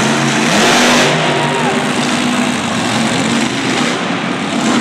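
Monster truck supercharged V8 engines revving, the pitch rising and falling over and over above a dense, steady noise.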